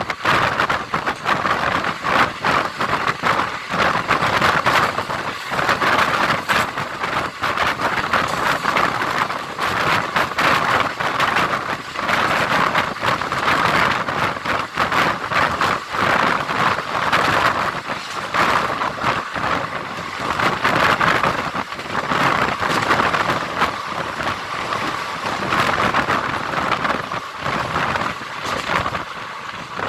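Moving passenger train's steel wheels rattling over the rails, with a rapid run of sharp clacks and a steady rush of wind.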